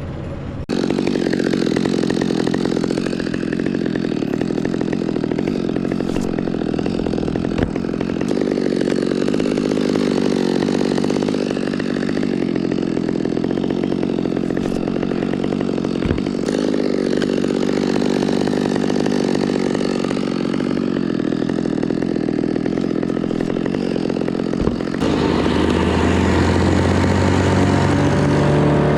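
An engine runs steadily and loudly, starting just under a second in. Near the end it changes to a cleaner, even drone that rises slightly in pitch.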